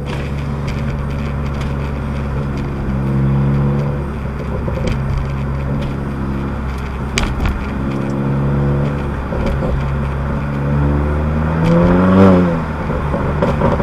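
Exhaust of a 2019 Honda Accord Sport's 1.5-litre turbo four-cylinder, with an aftermarket downpipe and front pipe and the resonator and muffler deleted, heard from inside the cabin with the windows down while driving. The engine note climbs a few times with throttle, and the loudest is a short rev that rises and falls about twelve seconds in.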